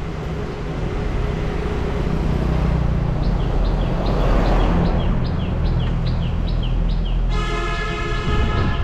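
A bus passing close by on the street, its engine and tyres giving a low rumble that swells to a peak about halfway through. A bird chirps repeatedly in the second half, and near the end a vehicle horn sounds for about a second and a half.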